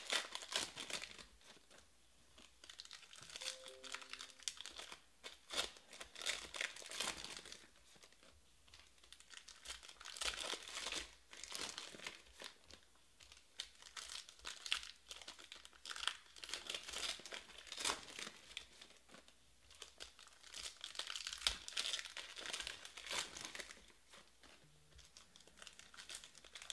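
Foil wrappers of Panini Prizm Baseball hobby packs crinkling and tearing as the packs are handled and ripped open, in irregular rustling spells.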